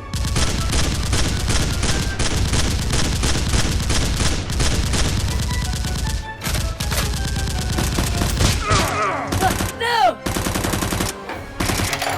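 Sustained rapid automatic gunfire, dense volleys of shots with a brief break about six and a half seconds in. A short sliding, wailing sound comes in around nine to ten seconds, between further bursts.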